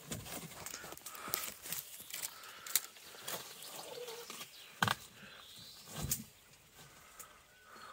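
Knocks and scrapes of someone climbing a tree with a wooden box: boots and the box bumping against branches, several sharp knocks, the loudest about five and six seconds in, with leaves rustling between them. Birds sing faintly in the background.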